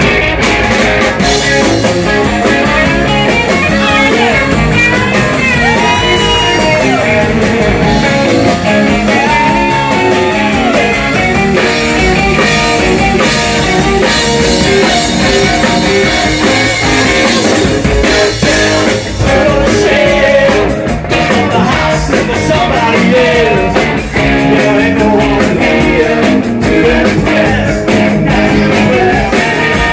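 Blues-rock band playing loud and live: electric guitars, bass guitar and drum kit, with a singer's voice.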